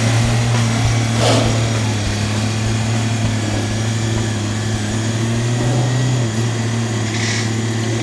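Kubota B1820 compact tractor's three-cylinder diesel engine running at a steady speed as the tractor drives over tilled ground. The engine note drops slightly about six seconds in.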